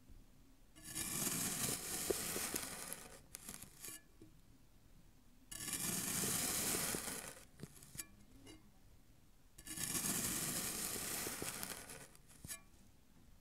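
A knife slicing down through a round block of packed fine sand three times, each cut a grainy crunching hiss of about two seconds, with quiet gaps and faint ticks between.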